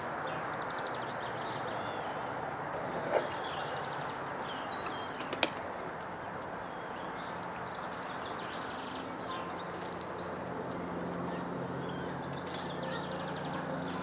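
Small birds chirping and trilling in short scattered calls over a steady background hiss, with two sharp taps about three and five seconds in. A low hum comes up in the last few seconds.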